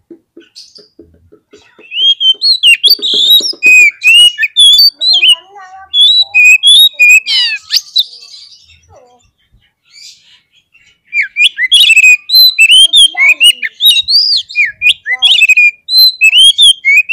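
Oriental magpie-robin (kacer) singing an aggressive, fighting song: loud, fast runs of varied whistles and chattering notes. It starts about two seconds in, breaks off for a couple of seconds in the middle, then comes back in a denser stretch.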